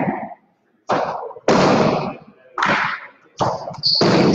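Jai alai pelotas hitting the fronton walls: about five sharp cracks in quick succession, each followed by a long echo off the hard court. A short high squeak comes near the end.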